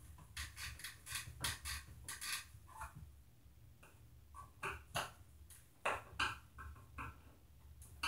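Screwdrivers working the screws of a plastic old-work electrical box set into drywall: irregular clicks and short squeaks of metal and plastic, in two clusters with a short lull in the middle.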